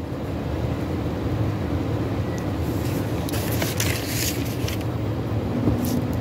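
Steady low background rumble with hiss, and a few short rustles about the middle.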